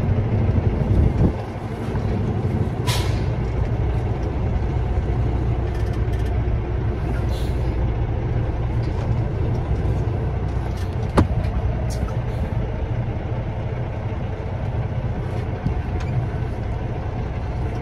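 Semi-truck's diesel engine running with a steady low rumble, with a short air-brake hiss about three seconds in, a fainter hiss a few seconds later, and a single sharp click near the middle.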